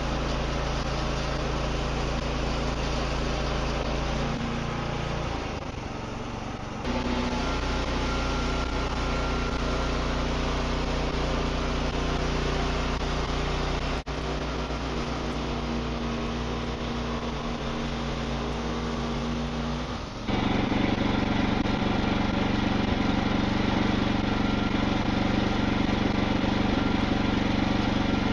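Wood-Mizer band sawmill's engine running steadily. It dips briefly about six seconds in and steps up abruptly to a louder, fuller sound about twenty seconds in.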